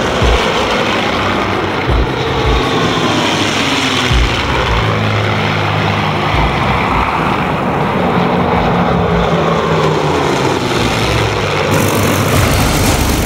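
A formation of WWII piston-engined fighter aircraft flying past, their propeller engines droning with a pitch that slowly falls as they pass. The sound changes abruptly near the end.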